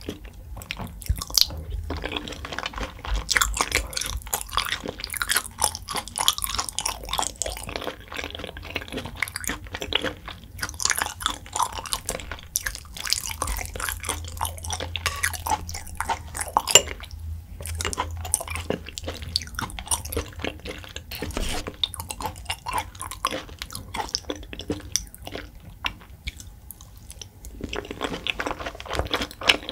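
A person chewing raw beef (yukhoe) close to the microphone, with many small wet clicks and mouth smacks, easing briefly near the end before picking up again.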